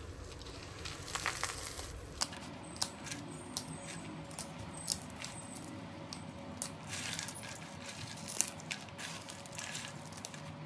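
Crisp roasted makhana (fox nuts) crackling as they are crushed between the fingers, with pieces and seeds dropping into a steel bowl in scattered light clicks.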